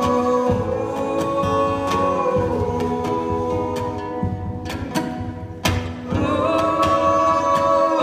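Acoustic guitar strumming under layered wordless vocal harmonies, built up on a loop pedal. The held vocal chord fades a little over two seconds in and a new one swells back about six seconds in.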